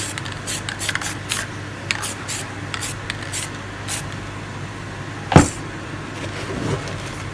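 Aerosol spray paint can hissing in a series of short, quick puffs, about ten in the first four seconds. One loud knock about five seconds in.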